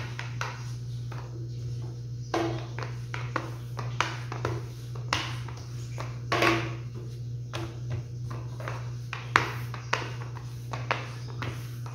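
Rolling pin rolling out bread dough on a stone countertop: irregular soft knocks and taps as the pin is pushed back and forth and set against the counter, one sharper knock about nine seconds in. A steady low hum runs underneath.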